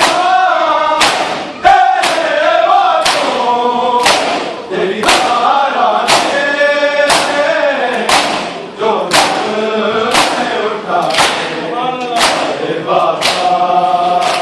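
A crowd of men chanting a noha (Shia lament) in unison, with loud rhythmic chest-beating (matam): hand strikes on bare chests land together about once a second.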